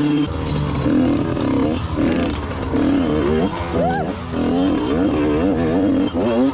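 Two-stroke engine of a TM Racing 100MX minicross dirt bike running under way, its pitch rising and falling repeatedly as the throttle is opened and closed, with sharp revs about a second and a half in, around four seconds in, and near the end.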